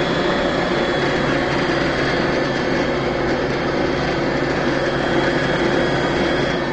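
Electric stand mixer running steadily, beating flour into butter-and-sugar cookie dough, with a constant motor hum; it starts to wind down at the very end.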